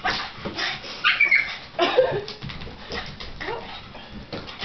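Boston Terrier whimpering and yipping in short irregular bursts, worked up over a balloon she wants to play with, with a few sharp knocks mixed in.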